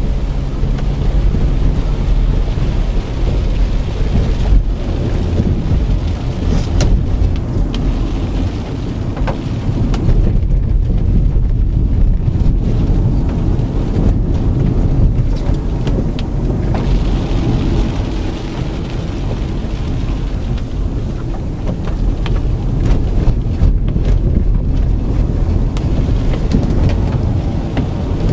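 Loud, steady driving noise inside the cabin of a 2006 Honda Accord automatic: low tyre-and-road rumble and engine hum, with wind noise over it.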